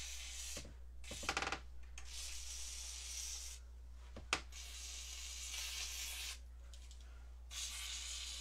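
Aerosol spray lubricant hissing onto the hinges of a squeaky screen door in several bursts of one to two seconds each, with one sharp click just past the middle.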